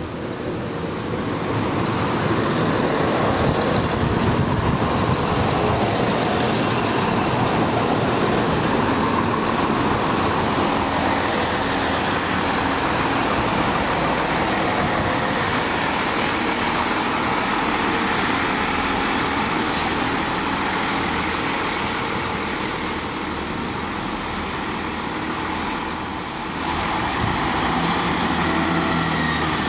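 Chiltern Railways diesel multiple units running through a station: a steady, loud mix of diesel engine noise and wheels on rails. The noise dips briefly near the end and then rises again.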